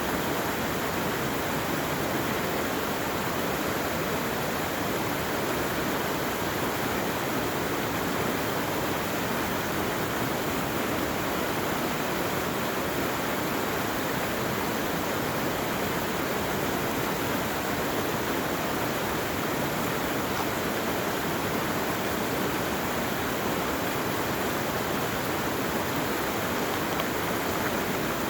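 Steady rushing of running water, like a stream in spate, holding an even level throughout.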